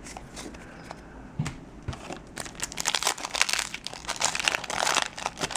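Crinkling of a foil trading-card booster pack wrapper being handled. It is quiet with a few light ticks for the first two seconds, then turns to dense crinkling.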